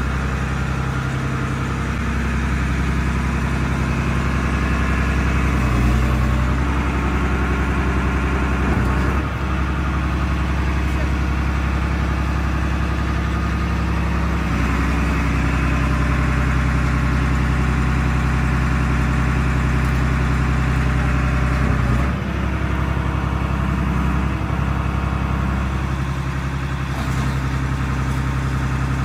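Engine of a mobile car crusher running steadily to power its hydraulics, its tone shifting a few times as the load changes.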